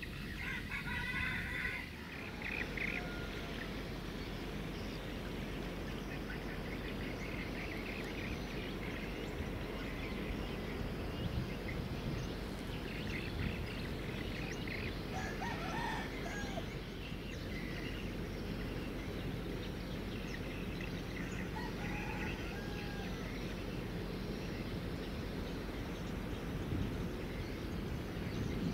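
A rooster crowing about halfway through, with other birds chirping near the start, over a steady low background rumble.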